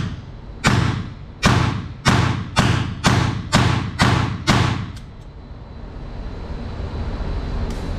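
Diamondback Sidekick .22LR revolver fired rapidly double-action, about two shots a second, eight sharp reports with ringing tails that end about four and a half seconds in. A few faint clicks follow as the revolver is handled.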